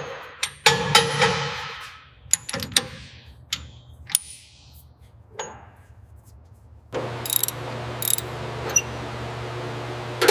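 Sharp metallic clicks and clanks of tool work on metal, each ringing briefly. About seven seconds in, a steady machine hum starts abruptly and runs on, with a few light clicks over it.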